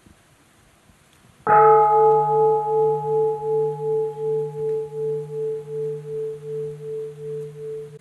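A large bowl-shaped meditation bell struck once, about a second and a half in, then ringing on with several clear tones. The ring fades slowly with a steady wobble of about three pulses a second.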